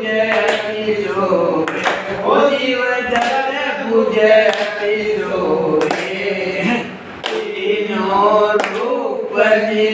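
A group of voices singing a devotional chant together, with sharp hits sounding roughly once a second.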